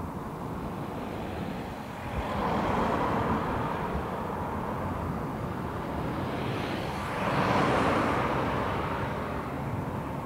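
Road traffic: two cars pass by one after the other, each a rising and fading rush of engine and tyre noise, the second louder, over a steady low rumble.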